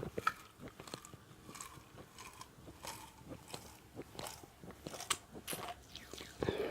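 A person chewing food with the mouth open and smacking the lips, irregular wet clicks several times a second.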